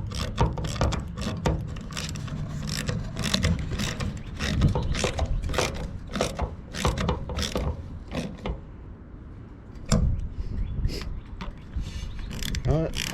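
Hand ratchet wrench clicking in quick repeated strokes, tightening a fastener under the truck; the clicking pauses for a moment after about eight seconds, then picks up again.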